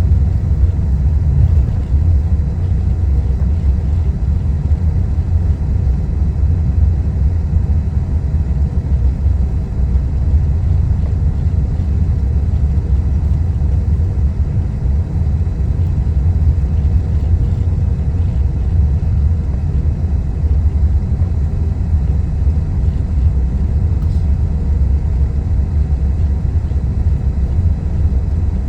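Steady low rumble of a Boeing 777 airliner taxiing, even in level, with no rise in pitch or loudness.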